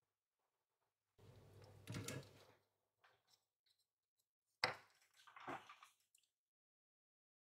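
Handling noises from a small circuit board moved about on a paper-covered workbench: a rustle early on, then a sharp knock about halfway through as the board is set down, followed by more rustling.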